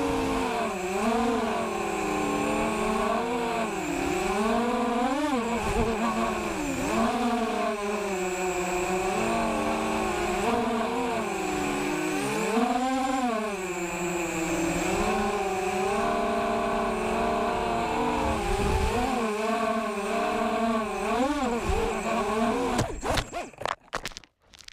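Mini FPV quadcopter's Sunnysky 1806 2000KV brushless motors whining on a 4S battery, the pitch sweeping up and down again and again with throttle changes. Near the end the sound stutters and cuts off.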